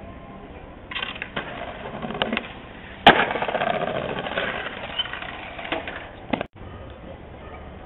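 Skateboard on pavement: a loud clack about three seconds in, followed by the wheels rolling, with smaller knocks before and after.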